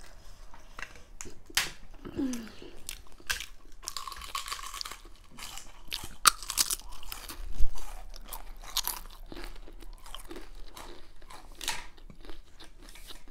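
Close-miked eating of a vegetarian meal set: irregular chewing with crunchy bites, and one louder knock about seven and a half seconds in.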